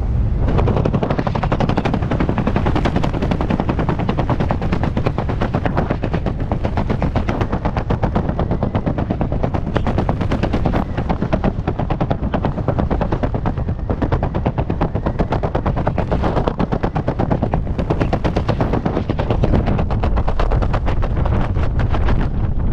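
Parachute and wingsuit fabric flapping fast in the airflow, a steady rapid rattling flutter like machine-gun fire, mixed with wind buffeting the helmet camera's microphone.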